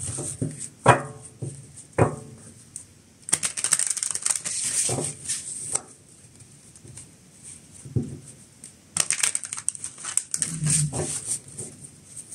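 A deck of tarot cards being shuffled by hand: quick runs of clicking and flapping card edges, two longer runs about three seconds in and about nine seconds in, with single clicks between.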